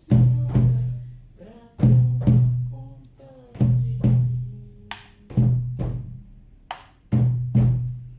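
Shamanic frame drum beaten in a slow double heartbeat rhythm: pairs of strikes about half a second apart, each pair roughly every second and three-quarters, every stroke leaving a low booming ring that fades. A couple of light, sharp clicks fall between the beats.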